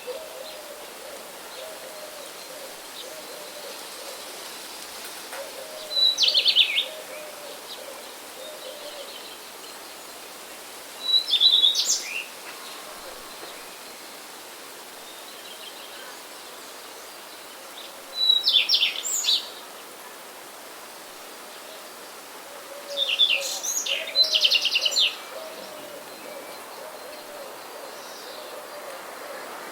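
Wild songbird singing a short, high, quick trilled phrase of about a second, repeated every five to six seconds, with a fainter low cooing call repeating in the background.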